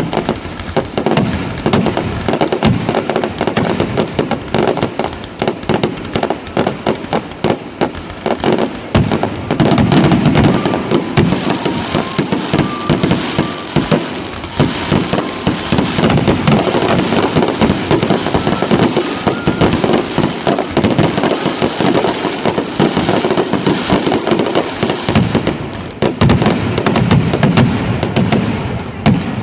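Aerial fireworks going off in a dense, continuous barrage of rapid, overlapping bangs.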